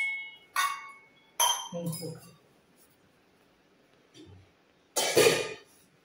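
Three sharp clinks of hard objects, each with a short ring, within the first second and a half, then a louder, longer noisy burst about five seconds in.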